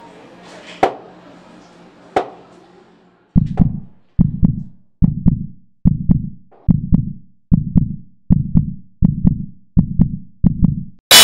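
Heartbeat sound effect: low double thumps, lub-dub, evenly spaced a little faster than one a second, starting about three seconds in. Before it come a couple of sharp clicks over faint hiss, and just at the end a sudden, very loud burst cuts in.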